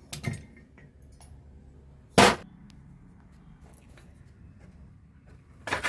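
Sharp metallic clanks from the parts of a dismantled auto-rickshaw starter motor being handled and set down: a double knock near the start, a loud clank about two seconds in, and another near the end.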